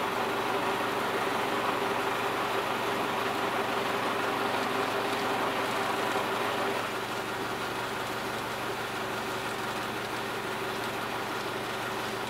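Steady hum of an idling diesel railcar engine, easing slightly in level about seven seconds in.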